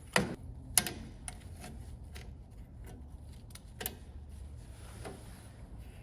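Sharp metallic clicks and clinks of small brake parts and hand tools being handled. Two loud clicks come close together at the start, another comes about four seconds in, and fainter ones fall in between.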